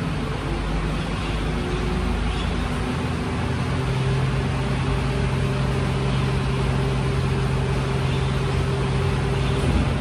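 Mercedes-Benz garbage truck's diesel engine running while parked. Its steady hum steps up in pitch about three and a half seconds in, holds there, and drops back just before the end.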